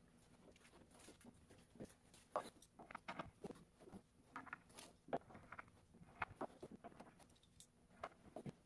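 Faint, irregular clicks, taps and rustling from hands handling flat-pack desk panels and small hardware during assembly.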